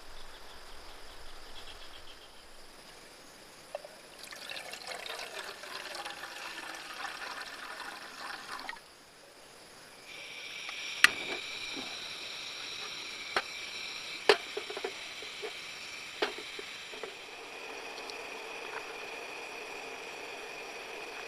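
Water pouring for a few seconds, then a few sharp clicks and knocks over a steady high-pitched hum.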